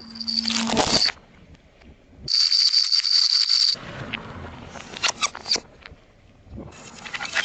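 Objects crunching and crackling as they are crushed under a car tyre, in several short bursts that start and stop abruptly, with sharp cracks in the middle.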